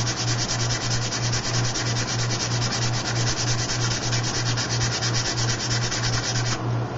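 Coarse sandpaper scrubbing rapidly back and forth on the back of a propeller blade, taking material off the heavy blade to balance the prop. The strokes stop suddenly near the end, over a steady low hum.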